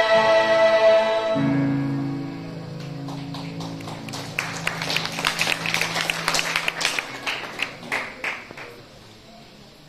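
Church choir's final held chord, cut off about a second in, then a lower instrumental chord that rings on and fades. Scattered audience hand-clapping starts about three seconds in, is fullest in the middle and dies away near the end.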